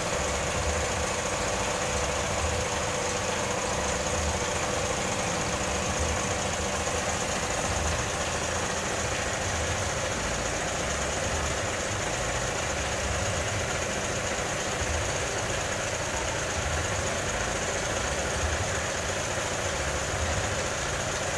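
Car wash machinery running steadily: a motor's uneven low rumble under a constant hiss.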